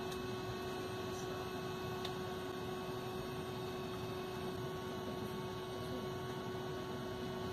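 Steady cabin noise inside an airliner: a constant hum over an even rushing noise, with no change throughout.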